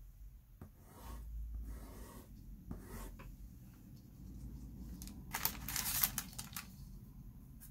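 A dry paintbrush swept across pastel paper to clear loose soft-pastel dust: a short burst of scratchy brushing about five and a half seconds in, the loudest sound. Before it, quieter rubbing and rustling of hand and paper on the drawing.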